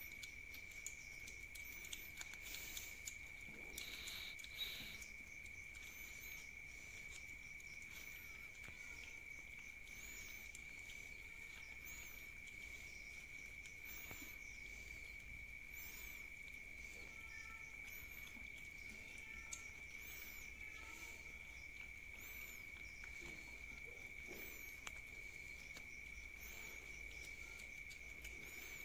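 Several cats licking and chewing wet cat food from a pouch: small wet clicks and smacks, busiest in the first few seconds. A steady high-pitched cricket trill runs underneath.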